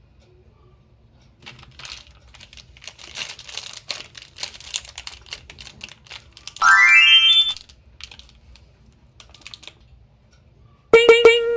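Crackling and crinkling of a candy wrapper being opened for a few seconds, followed about halfway through by a loud pitched sound that rises in pitch, and near the end by a loud steady pitched tone that starts with a few quick pulses.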